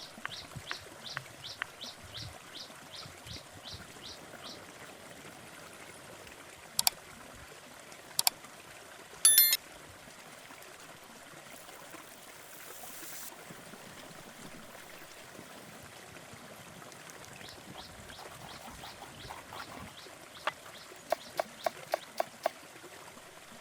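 A steady watery hiss runs throughout, with a run of short, evenly spaced chirps at the start. About seven and eight seconds in come two sharp knocks, then a loud ringing metal clink. Near the end there is a quick series of about six sharp taps.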